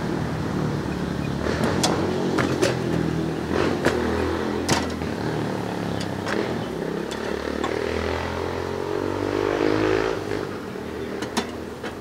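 A motor engine running steadily, its pitch rising a little about eight seconds in, with a dozen or so sharp clicks scattered over it.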